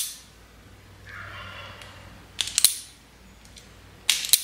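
Harbor Freight self-adjusting wire strippers snapping shut on wire as their dies grip the insulation and pull it off: sharp clicking clatters, one right at the start, one about midway and one near the end.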